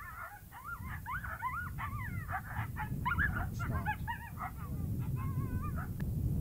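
Coyote submissive whimpers and yips: a rapid run of short, high, wavering calls that stops shortly before the end, over a low wind rumble on the microphone.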